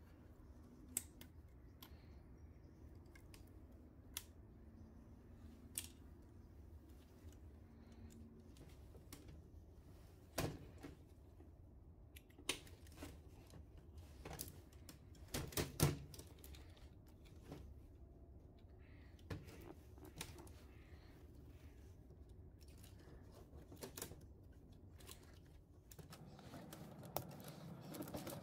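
Scattered clicks and light knocks of metal and plastic parts as a VCR tape transport mechanism is handled and taken apart by hand, the loudest cluster coming about halfway through.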